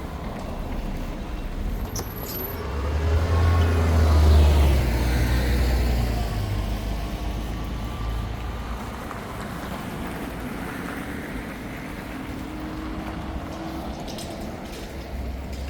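A heavy road vehicle passes close by, its low engine rumble swelling about three seconds in and falling in pitch as it goes past, then fading into steady street traffic noise.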